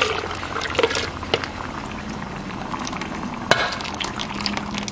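Chicken broth poured from a blender jug into a pot of blended pepper sauce, splashing and gurgling as it lands, with a sharp knock about three and a half seconds in.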